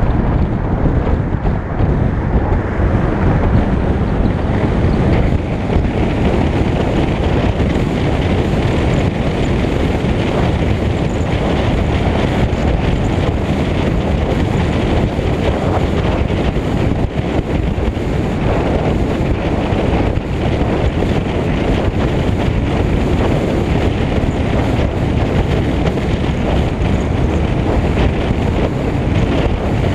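Steady, loud wind rush and buffeting over a camera mounted on the outside of a moving car's hood, mixed with road and tyre noise at driving speed.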